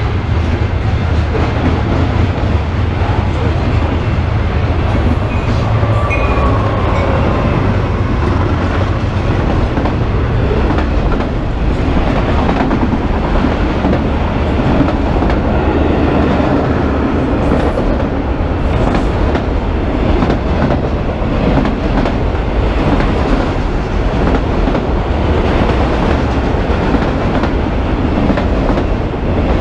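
Freight train rolling past at trackside: steel wheels on the rails give a loud, steady rumble with clickety-clack as a string of covered hoppers and then autorack cars goes by.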